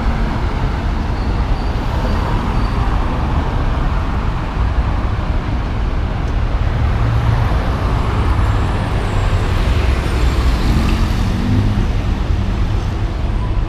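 Steady road traffic on a busy multi-lane city avenue: cars and a bus running past with a continuous low rumble of engines and tyres.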